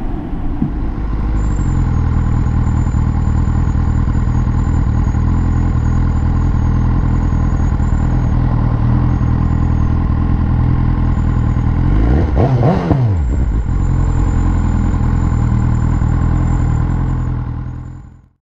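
BMW S1000R's inline-four engine running at steady revs while the bike is ridden at cruising speed, with wind rushing past. About twelve seconds in the pitch briefly dips and climbs again. The sound fades out near the end.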